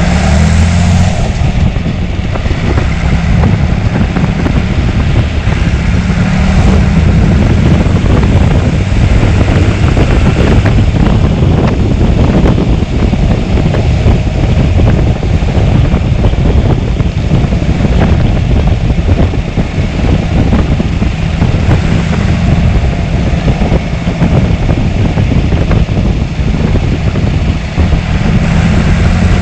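John Deere 3350 tractor's six-cylinder engine running steadily while driving, with wind buffeting the microphone.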